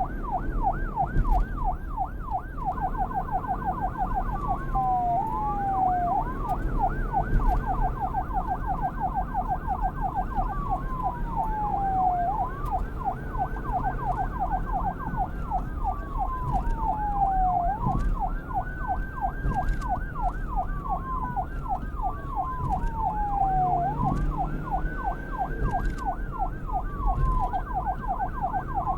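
Police car's electronic siren switching between the fast yelp and the slower wail, its pitch sweeping up and down. It yelps rapidly for the first few seconds and in short stretches after, then settles mostly into long rising and falling wails in the second half, over a low rumble.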